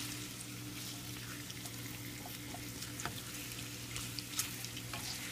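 Chunks of red-cap boletus mushroom frying in a stainless steel pan, with a faint sizzle while a wooden spatula stirs them, scraping and clicking against the pan now and then. A steady low hum runs underneath.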